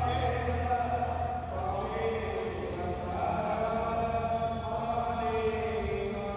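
Devotional chanting: voices holding long, slowly moving notes over a low steady drone.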